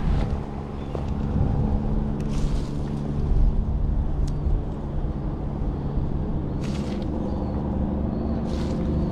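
Steady engine drone holding several low pitches, with a few short scuffing rustles about two and a half, seven and eight and a half seconds in.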